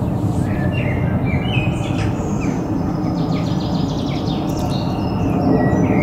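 Small birds chirping and whistling in short separate notes and a quick trill, over a steady low rumble that is the loudest sound throughout.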